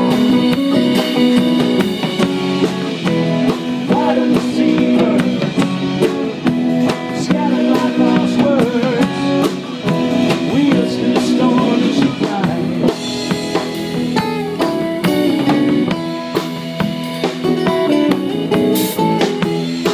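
Live band playing an instrumental passage: acoustic guitar, electric guitar and bass guitar over a drum kit keeping a steady beat.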